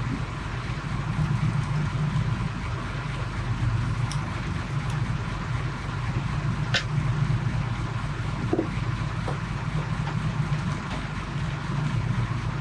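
Small fishing boat's engine running steadily at low speed, a constant low hum with wind and water noise, broken by a few faint clicks.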